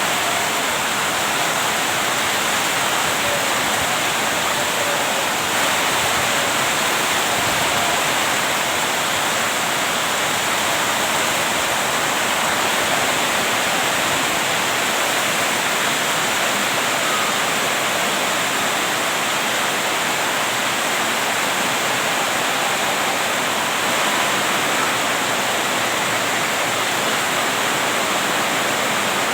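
Heavy rain falling steadily, an even hiss that neither builds nor lets up.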